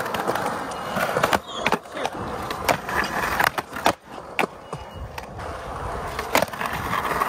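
Skateboard on smooth skatepark concrete: the trucks grind along a concrete ledge, then the wheels roll on across the flat, with several sharp clacks of the board hitting the ground.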